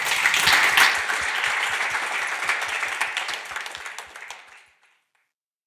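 Audience applauding, dying away after about four seconds and cutting off just before five seconds in.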